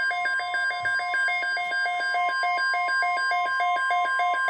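Weather radio alert: a steady warning alarm tone near 1 kHz with a rapid alternating two-pitch beeping over it, about four beeps a second. It is the alarm that comes before a NOAA Weather Radio tornado watch message.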